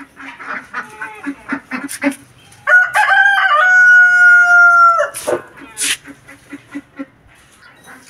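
A rooster crowing once, a few short notes rising into a long held note that cuts off about five seconds in. Before it come a few soft clucks from the hens.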